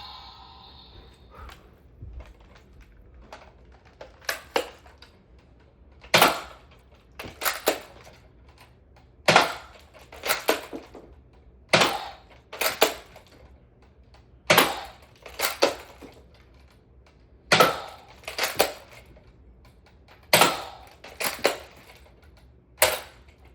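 Nerf dart blaster being fired shot after shot: seven loud sharp clacks about three seconds apart, each followed about a second later by one or two quieter plastic clacks.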